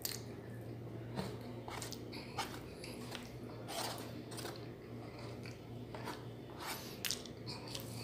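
Eating by hand: wet clicks and smacks of fingers squishing rice and sardines in sauce and of chewing, scattered irregularly, over a steady low hum.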